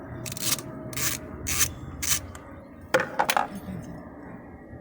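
Ratchet wrench clicking in short bursts, about four strokes half a second apart, then a sharper metallic clinking about three seconds in, as the 10 mm bolt holding the power steering pump's feed-hose fitting is loosened.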